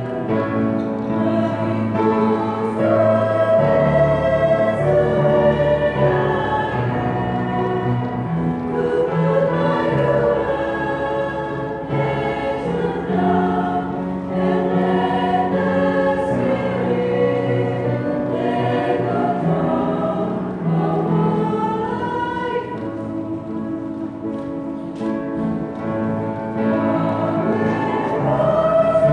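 Church choir singing, the voices holding and moving between notes without a break.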